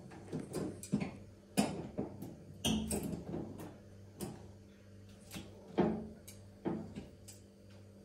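Irregular clicks, taps and clunks of a hand tool and fittings being worked at the back of an old washing machine during a repair, with a few louder clunks spread through, over a faint steady low hum.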